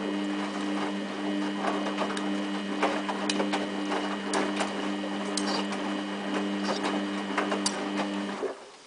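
Samsung WF8804RPA front-loading washing machine running during its final rinse: a steady electric hum with many irregular clicks and rattles over it, which stops abruptly about eight seconds in.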